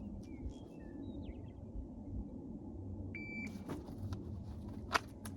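Shot timer sounding its start beep once, about three seconds in, over a steady low outdoor rumble; soft clicks and rustling follow during a one-handed draw, with one sharp knock near the end. Faint bird chirps early on.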